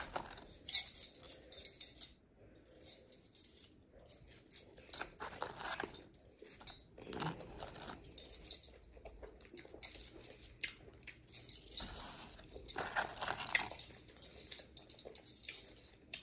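Scattered soft clicks and rustles of food being handled: fries picked out of a cardboard fry carton and a small plastic dipping-sauce cup of barbecue sauce held and handled.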